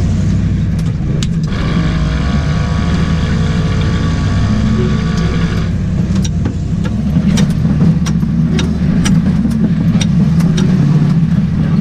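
Range Rover V8 engine running steadily under load as the 4x4 works over rough off-road ground, heard from inside the cab. A steady high-pitched tone sounds for about four seconds from a second and a half in, and sharp knocks and clunks come through in the second half.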